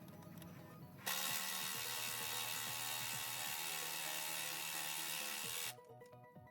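A power tool running steadily for about four and a half seconds, starting about a second in and cutting off suddenly, over background music.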